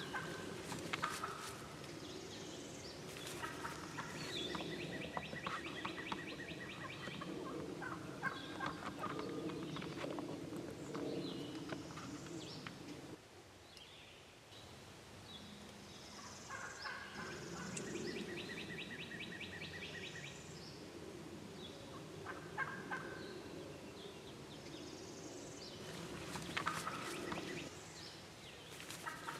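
Wild turkey toms gobbling: two long, rapid rattling runs of calls, one about three seconds in and another about seventeen seconds in, with shorter scattered calls between.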